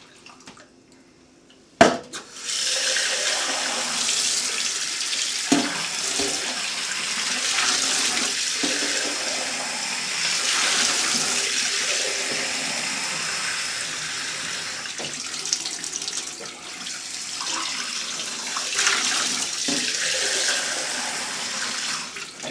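Cold tap water running into a stainless steel kitchen sink and splashing over a ceramic jug held under the faucet to cool it. The water starts just after a sharp knock about two seconds in, then runs steadily, with a few faint knocks of the jug.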